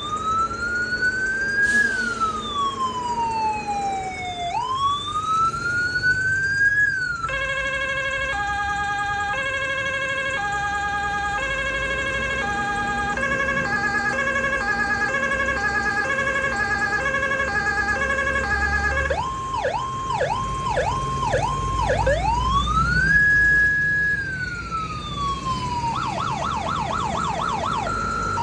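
Electronic vehicle siren cycling through its tones. It opens with a slow wail rising and falling in pitch. About seven seconds in it switches to a long stretch of stepped, alternating beeping tones, then quick wavering yelps, another slow rise and fall, and a fast warble near the end.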